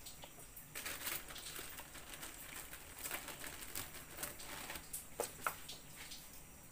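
Rustling of a plastic bread bag and light taps of a slice of bread being handled onto a plastic cutting board, in short irregular bursts.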